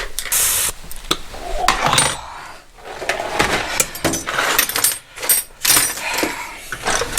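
Metal hand tools clinking and clattering while motorcycle work is under way: a run of sharp clicks and knocks, with a short rushing burst about half a second in.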